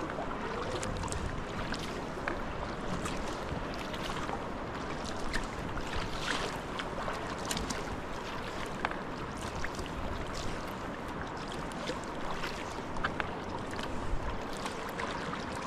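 Sea kayak paddling on calm sea: the paddle blades dipping on alternate sides, with irregular drips and small splashes over a steady wash of water along the hull.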